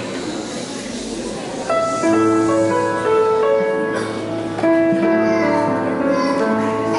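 Low room noise, then about two seconds in a keyboard starts playing the instrumental introduction to a Christmas song: held chords under a simple melody.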